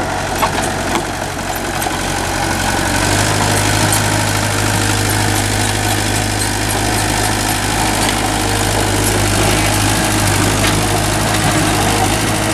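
Heavy diesel engine idling steadily; its low hum firms up about three seconds in and then holds.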